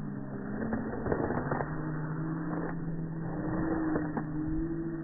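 A steady motor hum whose pitch creeps slowly upward, with a few light clicks.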